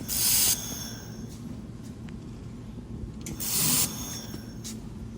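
Handheld fiber laser welding machine making two short spot welds, each a brief, loud, high-pitched hiss lasting about half a second, the second about three seconds after the first, over a steady low hum.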